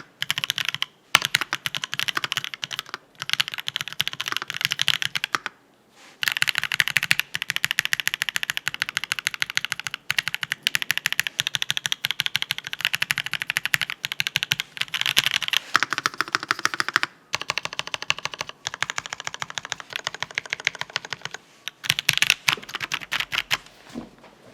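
Fast typing on a Monstar XO V3 custom mechanical keyboard with a brass plate, Marshmallow switches and Aifei ABS keycaps: dense runs of key clacks broken by brief pauses, stopping just before the end.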